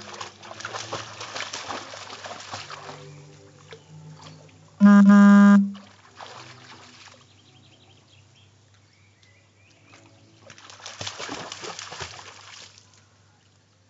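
Dog splashing and sloshing through a shallow garden pond, with bursts of water noise at the start and again about eleven seconds in as it scrambles toward the edge. About five seconds in, a loud steady tone sounds for just under a second.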